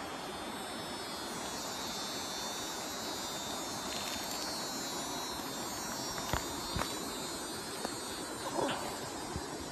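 Steady rush of a waterfall, with a high buzzing drone over it for much of the time and a couple of sharp clicks past the middle.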